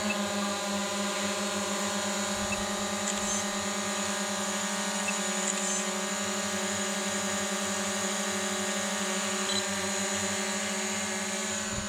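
A small motor running at a constant speed, a steady whine with many overtones.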